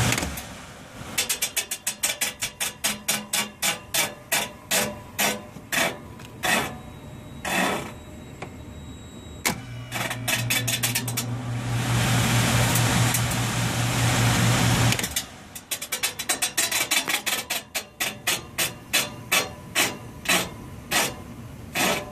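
Evaporator blower of an old York package unit knocking rapidly and rhythmically as the blower wheel turns, the knock rate slowing and quickening as the wheel runs down and starts again. A steady motor hum and a rush of air join in through a stretch in the middle. The knocking is the squirrel-cage wheel banging on its housing because the worn motor bearing has let it lose alignment.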